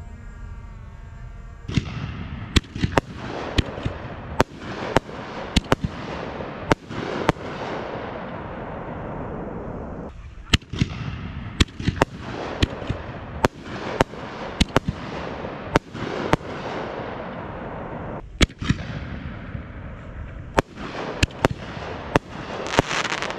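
Fireworks bursting: many sharp, loud bangs at an irregular pace, sometimes two or three a second, each one echoing, over a continuous noisy wash of crackle. A short stretch of music at the very start cuts off as the bangs begin.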